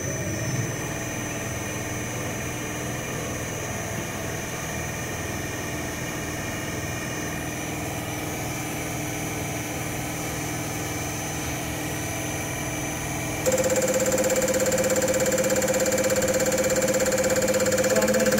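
Diesel injector test bench running with a steady mechanical hum. About 13 seconds in, the sound jumps suddenly louder into a steady whine with rapid, even ticking: the Bosch piezo injector starting to fire in a mid-load test at moderate rail pressure.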